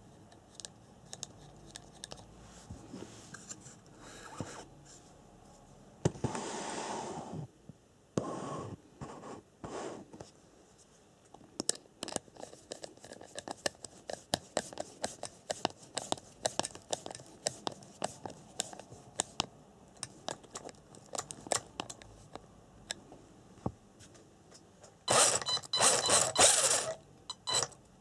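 Hand work on an RC buggy's wheel: small clicks and scrapes of plastic and metal as the wheel nut is unscrewed, the wheel is changed and a nut driver works the nut back onto the axle. A long run of quick light clicks fills the middle, and there are a few loud scraping rustles near the end.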